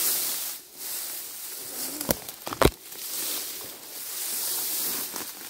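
Rustling and brushing through forest undergrowth, swelling and fading, with two sharp snaps or knocks about two and a half seconds in.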